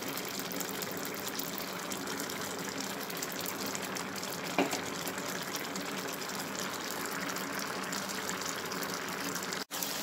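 Black beans in their liquid simmering in a pan, a steady bubbling, with one short knock about halfway through.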